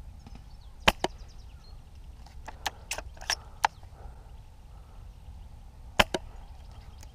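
Airsoft guns firing: about nine sharp snapping shots at irregular intervals. The loudest come as a quick pair about a second in and another quick pair about six seconds in, with a scattered run of four or five in between.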